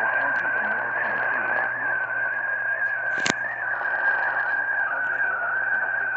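Radio receiver hissing static with a steady, slightly wavering whistle tone, and one sharp crackle about three seconds in.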